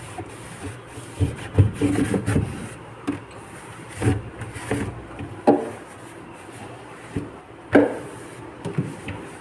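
Cleaning cloth rubbing over the vinegar-sprayed inside of a refrigerator, with a few sharp knocks and clacks against the fridge's walls and shelves.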